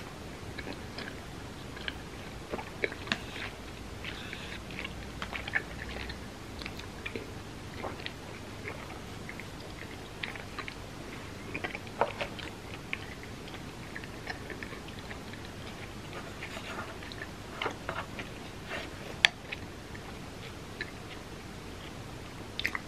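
A person chewing and biting food, with irregular soft, wet smacks and small clicks, and one sharper click late on.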